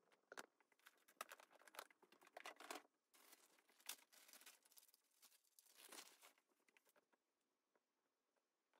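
Faint, irregular crinkling and rustling, like packaging or bags being handled, with small clicks mixed in. It thins out to a few scattered ticks about seven seconds in.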